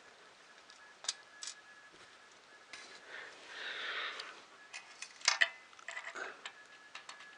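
Small clicks and taps of 3D-printer kit parts and hardware being handled during hand assembly, with a soft rustle about three seconds in and the sharpest clicks a little after five seconds.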